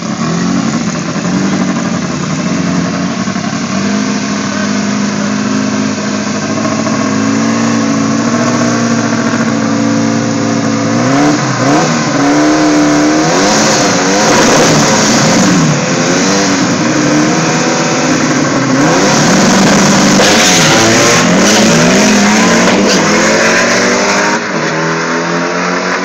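Drag-race Volkswagen Beetle engine and a second drag car at the starting line: loud steady idle, then repeated revving up and down from about eleven seconds in. A sustained full-throttle run follows in the last third, and the level drops a couple of seconds before the end as the cars pull away.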